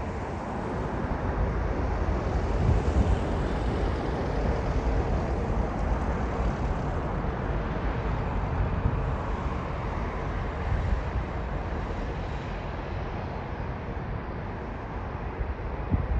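Jet airliner engines rumbling on the approach to land, mixed with wind buffeting the microphone. The noise swells a little a few seconds in, then slowly eases off.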